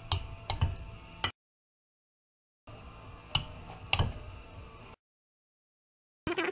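Click-type torque wrench tightening the bearing retainer bolts on a transfer case to 13 ft-lb, giving a few sharp metallic clicks spread over several seconds. The sound drops out completely twice where it is cut.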